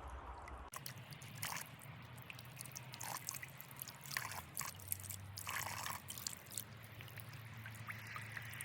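Water from a small pump-fed waterfall trickling and splashing over stones into a small pond, with scattered drips.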